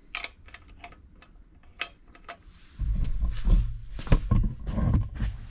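Light metal clicks and taps as a socket and beam-type torque wrench are fitted onto the crankshaft hub, then, from about three seconds in, low rumbling handling noise with a few knocks.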